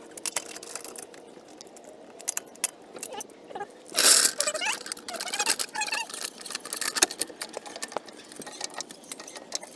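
Scattered metallic clicks and knocks of hand tools and wheel hardware being handled, with a louder scraping clatter about four seconds in followed by a few short squeaks.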